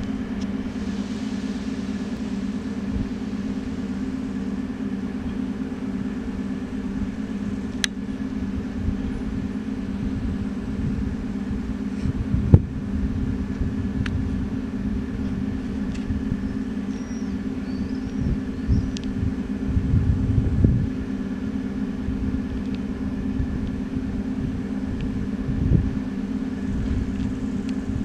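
A steady low mechanical hum, with a few low rumbles swelling and fading and one sharp click about twelve seconds in; faint bird chirps near the middle.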